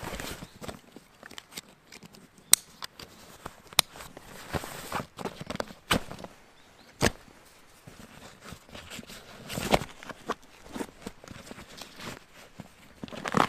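Nylon rucksack being closed up by hand: fabric rustling as the top flap is pulled down and straps handled, with several sharp clicks from its plastic buckles and fittings.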